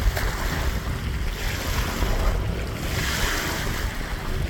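Wind buffeting the microphone: a steady rushing noise with gusty low rumble.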